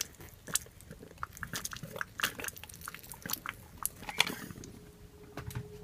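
Water squirted from a plastic squeeze bottle onto the coco-fibre substrate and webbing, heard as faint, irregular small clicks and crackles, with a louder crackle about four seconds in.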